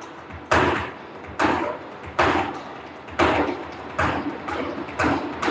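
Flamenco footwork: sharp heel and shoe stamps on a wooden stage, about seven strikes roughly a second apart, each ringing out in the hall.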